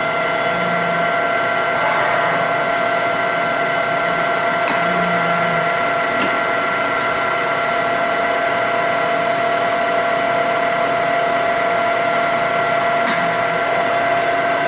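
Kiwa KUD-550FS gear-head drill press running at high spindle speed, a steady gear whine made of several held tones.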